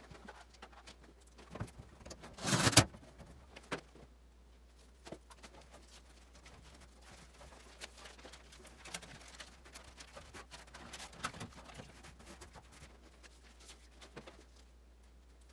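Sheet-metal furnace duct pipe being handled: scattered light clicks and knocks, with one short louder metallic clatter about two and a half seconds in.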